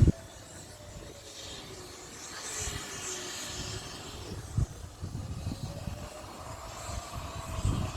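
Siren wailing, its pitch sliding slowly down and then back up over several seconds, with a few low thumps on the microphone.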